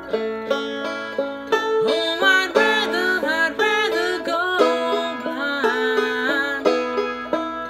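Banjo finger-picked in a steady run of notes, with a man's voice joining from about two seconds in, singing a wordless, wavering run over it.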